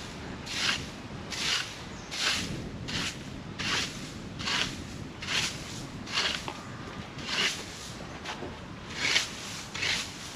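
A broom sweeping through dry leaves on the ground in steady repeated strokes, a short swish about every three quarters of a second.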